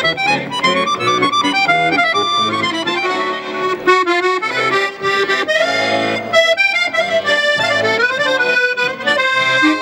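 Solo chromatic button accordion playing a quick melody over low bass notes.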